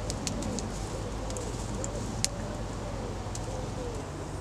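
A pigeon cooing over and over, short arched coos about twice a second, with a few sharp crackles and pops from a wood campfire.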